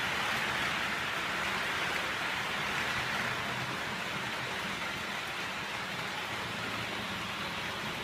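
H0-scale model train running on the layout's metal track: a steady rushing rattle of wheels on rails that eases slightly after about four seconds.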